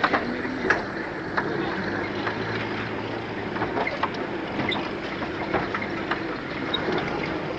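Land Rover Series four-by-four's engine running at low speed as it crawls along a rough dirt track, with a steady rumble and scattered short clicks and knocks.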